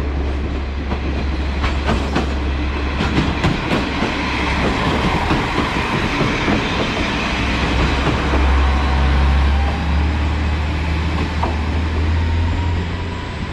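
KiHa 47 diesel railcar passing close by: a steady low diesel engine hum under the rumble of the wheels, with sharp clicks of wheels over rail joints in the first few seconds and a thin wheel squeal in the second half.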